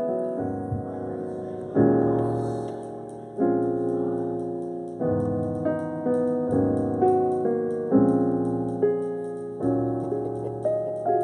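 Stage keyboard playing a piano sound: slow chords struck about every second and a half, each ringing out and fading before the next.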